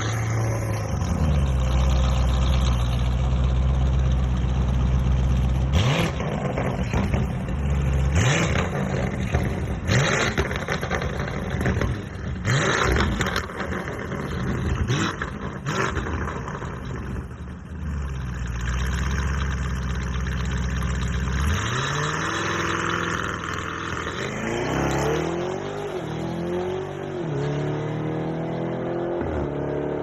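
Lamborghini Urus twin-turbo V8 exhaust idling steadily, then a string of sharp rev blips. After a short return to idle come repeated longer revs, rising and falling in pitch, through the last third.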